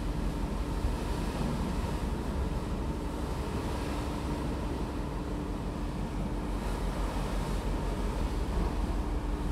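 Passenger ferry under way at sea: a steady low engine rumble mixed with the rush of wind and water. A faint steady hum runs through it and drops out about two-thirds of the way in.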